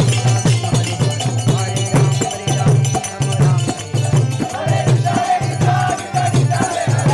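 Devotional kirtan music: a low beat pulsing about twice a second under jingling percussion and a chanted melody line that comes up stronger in the second half.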